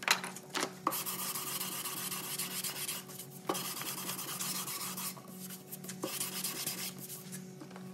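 Hand tool scraping and shaving along the bevelled edge of a hardwood tabletop in several long, continuous strokes, blending the router-cut bevel by hand.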